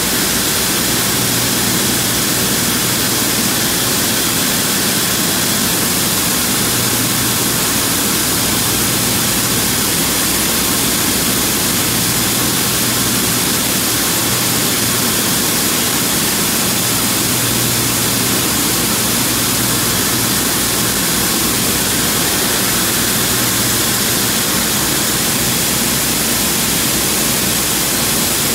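A bank of VMek Element optical color sorters running soybeans at full rate: a steady, loud, dense hiss and patter of beans streaming down the chutes, with the sorters' compressed-air ejectors blowing out defective beans. A low machine hum runs underneath.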